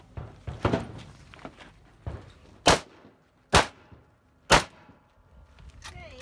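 AK-pattern rifle fired in single shots, four loud reports roughly a second apart, with quieter knocks between them.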